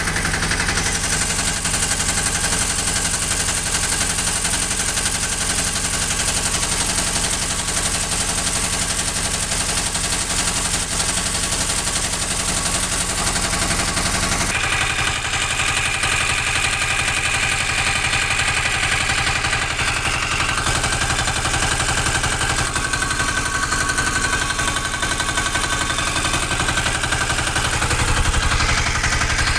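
Greaves diesel engine running steadily after a full rebuild, with a fast, even knocking beat; the sound changes abruptly about halfway through.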